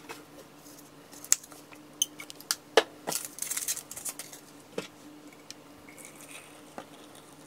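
Small knocks and clinks of a ceramic mug being handled on a wooden countertop while tea is made, with a faint steady hum underneath. Near the end, hot water is poured softly from an electric kettle into the mug.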